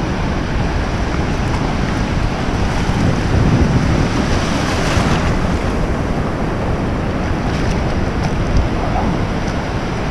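Shallow ocean surf washing and foaming around a wader's legs, with wind buffeting the microphone; the rush of water swells briefly about four seconds in.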